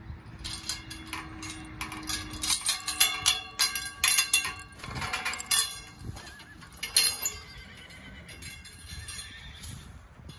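Metal paddock-gate chain rattling and clinking in a run of sharp, irregular clanks as the gate is unhooked, with horses whinnying and their hooves clopping as they trot up.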